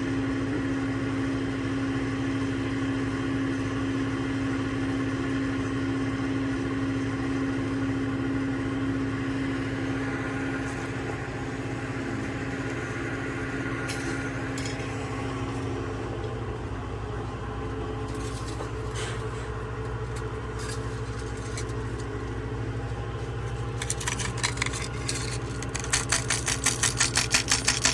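An engine idling steadily. In the last few seconds a rapid rhythmic clatter joins in, about five pulses a second.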